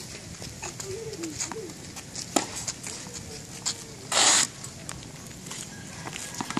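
Scattered light taps and clicks of tennis balls and rackets being handled, with one short, loud scraping rustle about four seconds in and faint low cooing calls behind.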